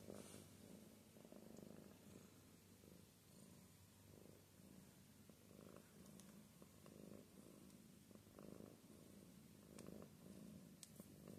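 Domestic cat purring quietly and steadily while being stroked, the purr swelling about once a second with each breath, a sign of contentment.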